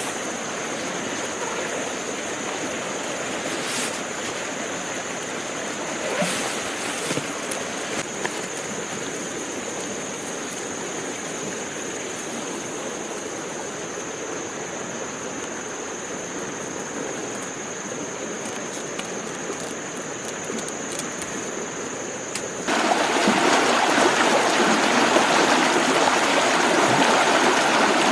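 Shallow stream running over rocks, a steady rush of water that becomes suddenly louder about 23 seconds in. A few faint clicks and rustles come early in the first half.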